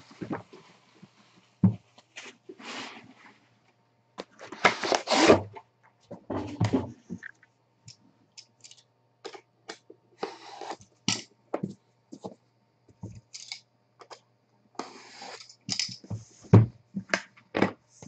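Plastic wrap and seal being cut and torn off an aluminium briefcase-style trading-card box, heard as crinkling, tearing bursts and scrapes. Sharp clicks and knocks come from the metal case near the end.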